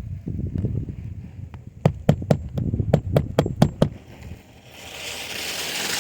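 About nine quick hammer blows, roughly four a second, nailing down a replacement asphalt shingle, with low rumbling handling noise before them. Near the end a rising hiss starts and then cuts off suddenly.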